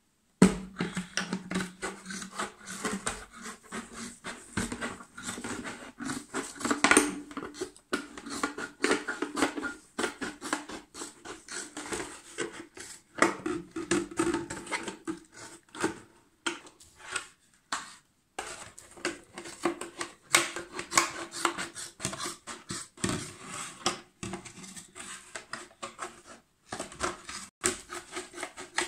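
Scissors cutting through the wall of a plastic fabric-softener bottle: a continuous run of short crunching snips with brief pauses.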